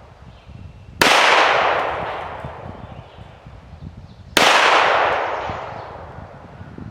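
Two handgun shots fired deliberately about three and a half seconds apart, each a sharp crack followed by a long fading echo.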